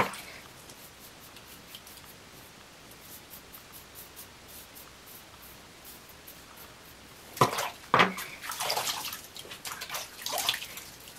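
Faint scraping of a safety razor shaving stubble. About seven seconds in, water splashes loudly in a sink, a few sharp splashes then a burst of sloshing, as the razor or face is rinsed.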